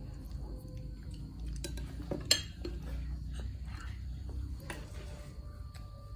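Spoons clinking and scraping against bowls as people eat, with one sharp, louder clink about two seconds in.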